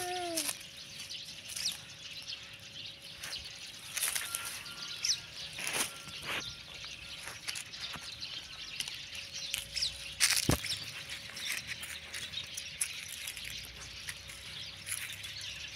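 Scattered rustling, scraping and clicking of a husky puppy moving about on dry leaves and dirt, with faint bird chirps. A falling call trails off at the very start, and one sharp click comes about ten and a half seconds in.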